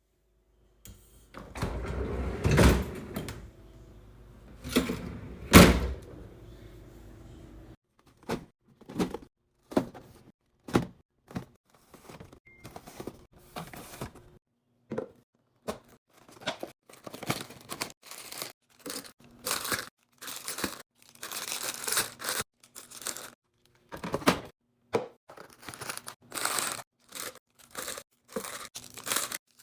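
Food packaging crinkling and containers knocking and clunking as a fridge is restocked and organized. Two louder thuds come in the first six seconds, then a quick string of short clicks, taps and rustles.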